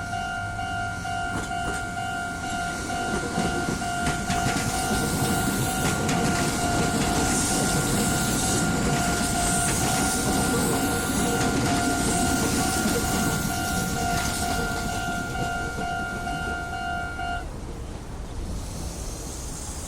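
Japanese level crossing's electronic warning bell ringing in a steady repeating tone while a Meitetsu Seto Line electric train passes over the crossing. The train noise swells and fades, and the bell cuts off near the end.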